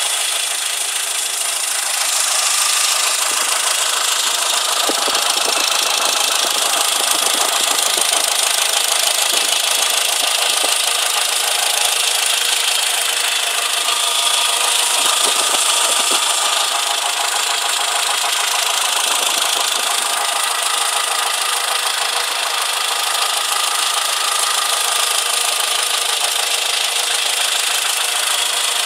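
Engine running with a knock.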